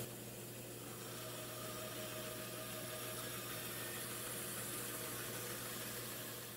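Band saw running steadily while a solid wood blank is fed into the blade, ripping a long kerf cut along the rip fence.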